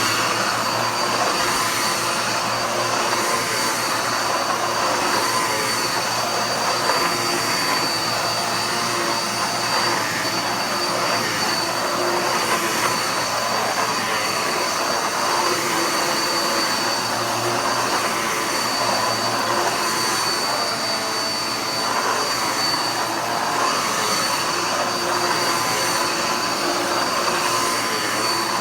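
Dirt Devil Power Max upright vacuum cleaner running steadily on carpet, its motor giving a constant high whine.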